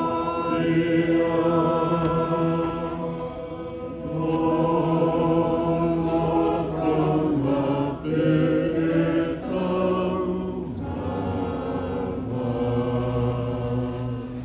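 A choir of many voices singing a slow hymn in harmony, phrases of long held notes with short breaks between them.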